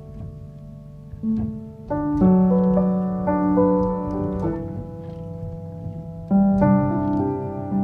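Background instrumental music, piano-like: held chords that change every second or two, growing louder about two seconds in.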